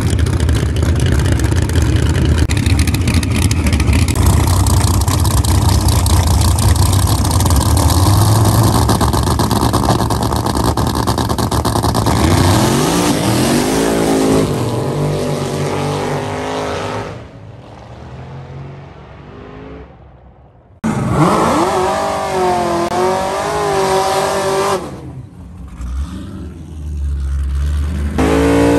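A car doing a burnout, its engine held at high revs with the tyres spinning and screeching in a dense, loud roar. After about twelve seconds this gives way to the engine revving up and down in rising and falling sweeps. A hard rev comes back near the end.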